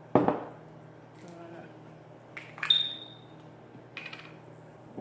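Glass bottles and glassware handled on a counter: a dull knock at the start, a sharp glass clink that rings briefly a little before the middle, and a lighter click about a second after it.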